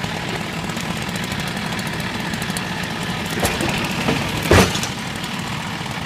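Tractor engine running steadily to drive a forestry cable winch on a felled log, with a short loud knock about four and a half seconds in.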